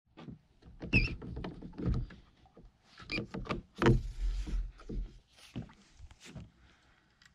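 Irregular knocks and clunks of a fishing rod being handled and lifted out of a rod holder on a boat's gunwale, the heaviest thuds about a second, two seconds and four seconds in.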